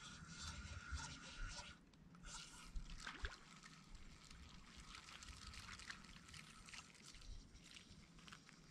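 Near silence: faint outdoor ambience with light trickling water and scattered soft ticks.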